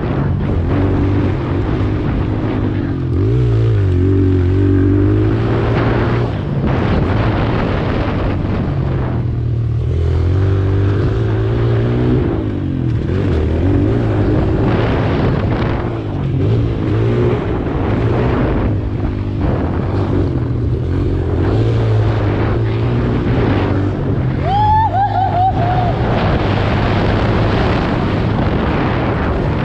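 Kawasaki KLX140 pit bike's small four-stroke single-cylinder engine riding a dirt track, its pitch rising and falling over and over as the throttle is opened and closed.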